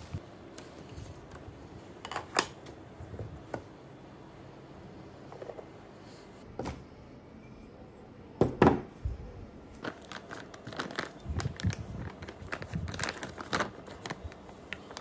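A plastic bag crinkling and rustling as it is handled, in scattered crackles, with a dense run of crackles near the end. A single heavier knock comes a little past halfway as a ceramic bowl is set down on the table.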